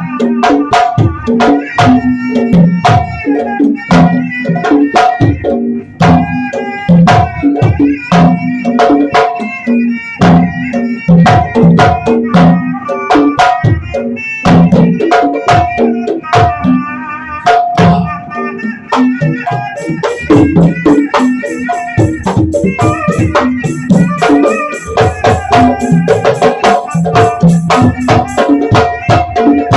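Instrumental music: hand drums struck in a quick, busy rhythm over ringing pitched tones that hold and change every second or so.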